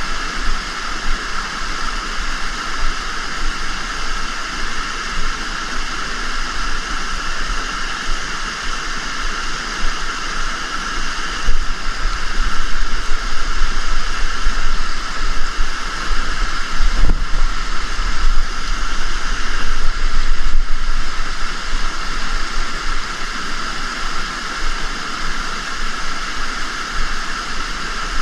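River water rushing over rocks, a loud steady noise that swells for several seconds in the middle.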